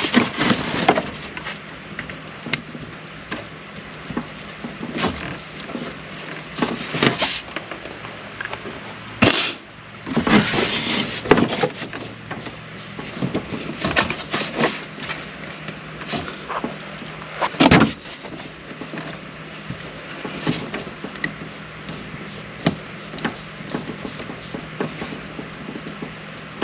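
Hands working in a truck dashboard: scattered clicks, rattles and rustling of small parts and clips, with sharper knocks about nine and eighteen seconds in.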